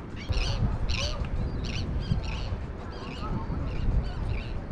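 Birds calling over and over, about two short high calls a second, over a low rush of wind on the microphone.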